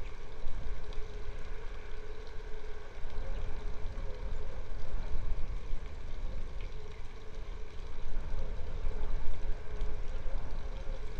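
A steady engine drone holding one low-middle note, with a gusty low rumble of wind on the microphone.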